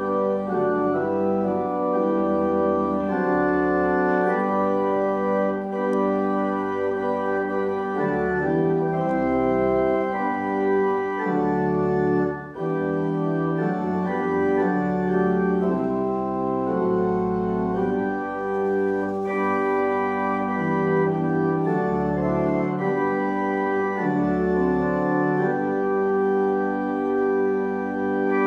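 Organ playing slow, sustained chords over a changing bass line, with a brief break about midway.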